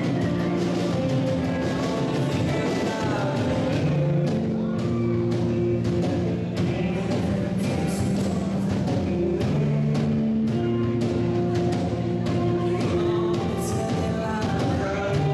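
A live band playing with singing, over held bass notes and a steady drum beat.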